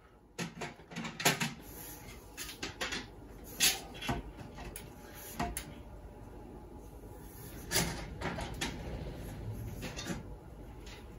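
Handling noise from a magnetic loop antenna's white plastic plumbing-pipe stand and stiff coax loop: irregular knocks, clunks and clicks as the pipe and cable are moved about on a folding work platform, the loudest a little under four seconds in and near eight seconds.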